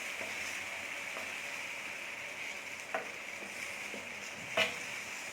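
Paella rice frying in oil and tomato sauce with pieces of fish, a steady sizzle in the pan. Two short knocks about 3 s and 4.5 s in, the second louder.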